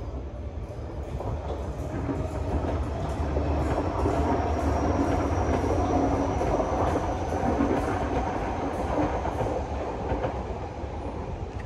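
Singapore MRT C151B train departing and accelerating past: rumble and wheel clatter build to a peak about midway, then fade as it pulls away. A faint high whine slowly rises in pitch.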